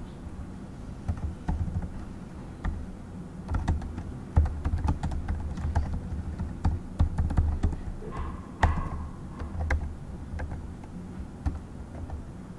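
Typing on a computer keyboard: irregular key clicks, coming in quick runs through the middle, over a low steady hum.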